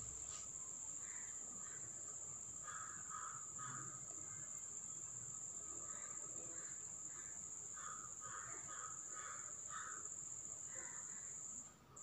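Faint caw-like bird calls coming in short bunches, over a steady high-pitched whine.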